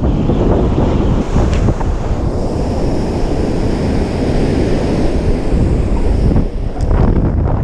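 Heavy surf from large plunging breakers, crashing and washing up a steep sand beach, under strong wind buffeting on the microphone. A hissing wash of foam rises in the middle of the stretch.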